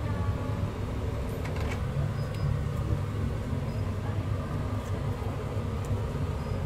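Steady low mechanical hum and rumble, with a few faint clicks and taps.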